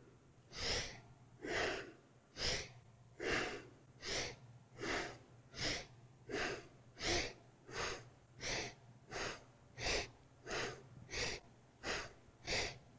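A person breathing sharply in and out through the nose in a steady rhythm, one breath stroke a little under every second, speeding up slightly over the span: yoga breathing timed to a seated side-to-side twist.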